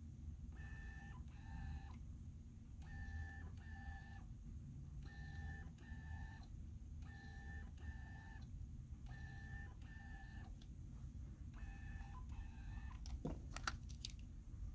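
Faint double beeps, each pair about every two seconds: the Canon EOS 6D's autofocus-confirmation signal as the Canon EF 50mm f/1.8 STM lens focuses and locks. A few sharp clicks sound near the end.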